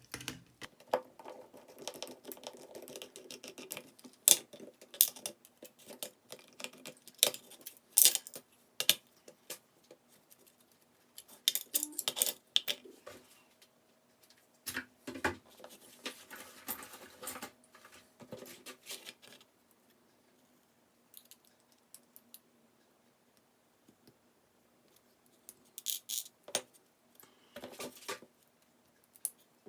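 Metal clicks, taps and clinks with bouts of scraping as a Goal S pin-tumbler lock is taken apart by hand to remove its plug and pins. The sharp clicks come irregularly, with a quieter pause in the second half and another cluster of clicks near the end.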